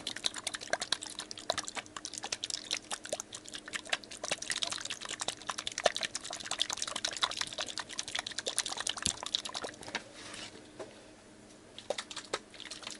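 Plastic Poopsie Slime Surprise container being shaken hard by hand, with the watery slime mix sloshing inside amid rapid clicks. The shaking stops about ten seconds in.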